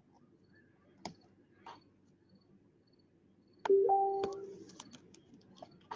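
A few light clicks and ticks from trading cards and plastic card holders being handled. About two-thirds of the way in, a short steady tone starts sharply and fades over about a second, followed by more scattered clicks.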